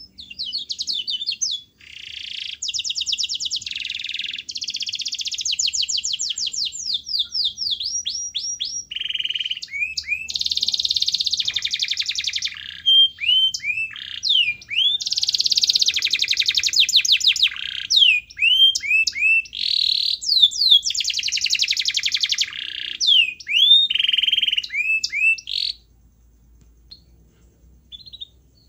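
Domestic canary singing a long, almost unbroken song. It alternates fast rolling trills with runs of quick whistled notes that swoop up and down, and it stops about three seconds before the end.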